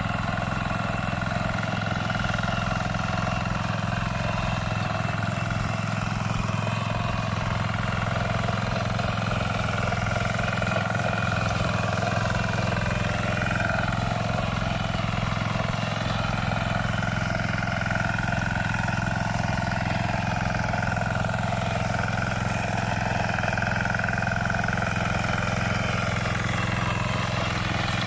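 Small engine of a walk-behind rotary tiller (patpat) running steadily under load as it tills the soil, its pitch wavering slightly.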